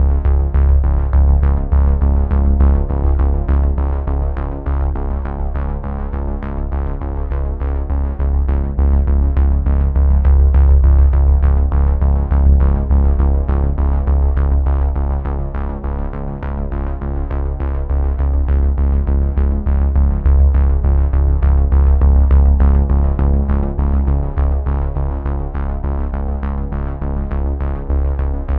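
Background synthesizer music with a steady beat and a sustained low bass.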